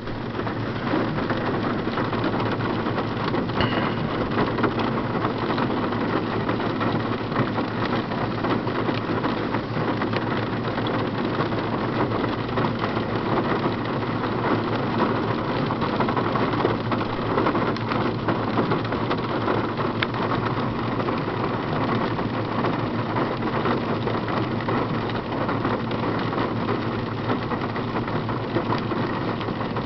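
Heavy rain pouring steadily onto a car's roof and windows, heard from inside the car, a dense patter of drops.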